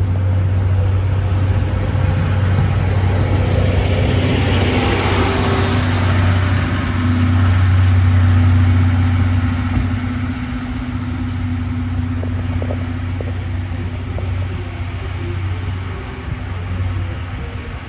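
C11 steam locomotive hauling a brake van and three coaches, moving out with a steady low rumble. The rumble swells to its loudest about halfway through and then eases, with a few light clicks of wheels on the rails afterwards.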